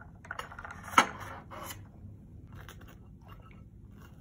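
Close eating sounds: a few bites and chewing, with one sharp click about a second in, then fainter small clicks.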